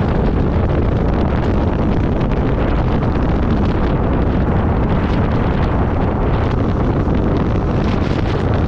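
Steady wind noise buffeting the microphone of a camera on a moving pickup truck, mixed with the truck's road noise.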